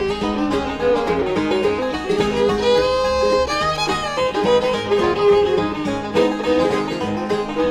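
Bluegrass band playing an instrumental break, a fiddle carrying the melody with slides and held notes over banjo, guitar and bass.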